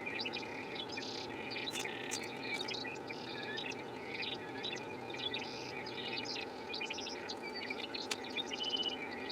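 Small birds chirping and twittering in quick irregular bursts over a steady low hum.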